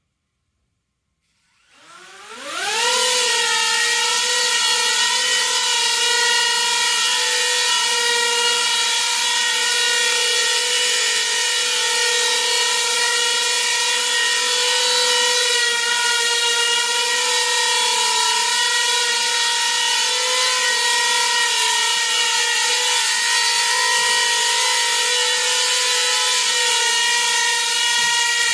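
Small coaxial copter's rotors spinning up from silence about two seconds in, the pitch rising quickly, then a steady whine with several tones as it hovers.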